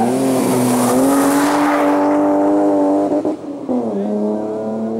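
BMW E30 325i rally car's straight-six engine passing at full throttle, its note rising as it accelerates. It drops at an upshift about three seconds in, then climbs again.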